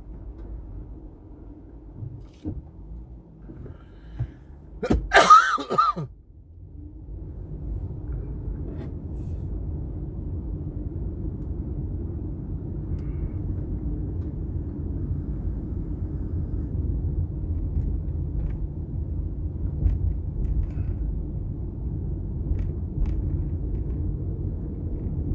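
A person sneezes loudly about five seconds in, inside a moving car. Car road and engine rumble then builds up and holds steady as the car picks up speed.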